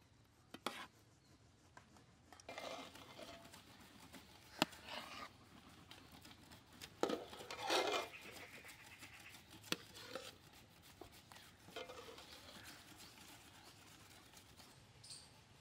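Metal spatula scraping through thick curry in a metal wok and clinking against the wok and a metal plate as the curry is served out, with a few sharp clinks and the loudest scrape about eight seconds in.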